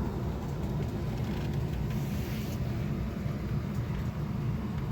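Steady low rumble of machine or background noise, with a brief rustle about two seconds in.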